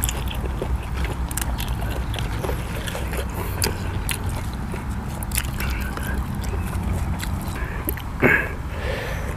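Close crackling and snapping of fresh herb leaves being stripped from their stems by hand, over a steady low rumble. A brief louder sound comes near the end as pieces of boiled intestine are lifted out of the sauce.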